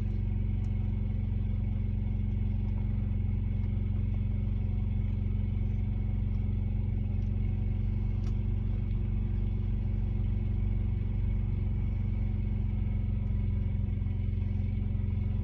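Steady low mechanical hum made of several even tones, unchanging throughout, with a couple of faint clicks.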